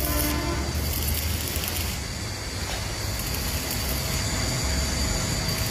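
Plastic-bag production machinery, including blown-film machines, running with a steady low hum and rushing noise.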